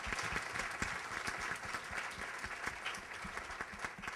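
Audience applauding: many hands clapping in a dense patter that slowly tapers off toward the end.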